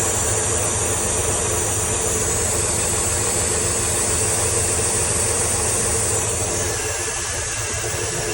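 LT1 V8 engine of a 1996 Camaro SS idling steadily, with a steady hiss over the engine note.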